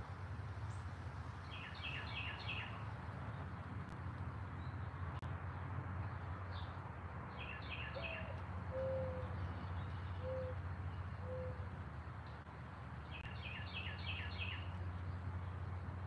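Backyard birdsong: a songbird gives a short burst of rapid high chirps three times, and about halfway through a dove gives a low four-note coo, the first note rising. A steady low hum runs underneath.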